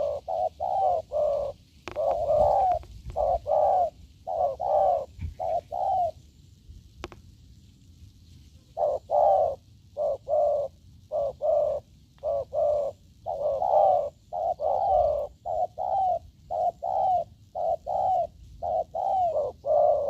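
Spotted dove cooing: a fast run of short, repeated coos, breaking off for about three seconds near the middle and then resuming.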